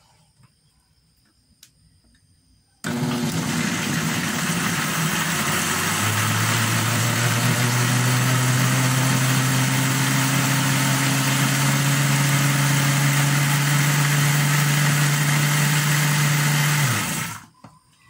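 Cadence Robust 1000W blender running on its first, lowest speed, blending soursop pulp and water. The motor starts suddenly about three seconds in, runs with a steady hum and whir that is a little quiet for a blender, and is switched off near the end, winding down briefly.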